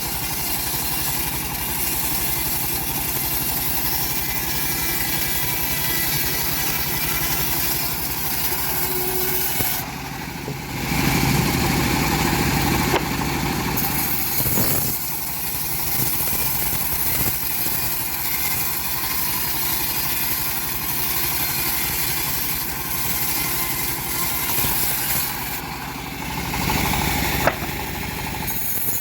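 Homemade bandsaw mill running steadily while sawing hard teak wood, with the drive engine's steady note. It grows louder and heavier for a few seconds about eleven seconds in, and there is one sharp click near the end.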